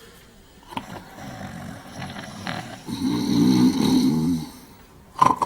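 Men snoring heavily, building to a long, loud snore about three seconds in. A short sharp sound follows near the end.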